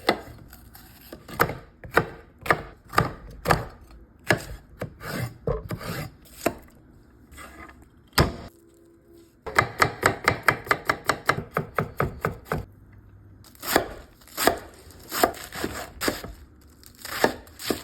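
Knife chopping vegetables on a cutting board: a series of sharp knocks, uneven at first, then a fast, steady run of chops about halfway through, with short pauses between runs.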